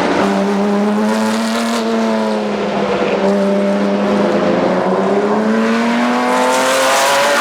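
BMW M1 Procar's straight-six racing engine running at steady revs, then climbing in pitch over the last couple of seconds as the car accelerates.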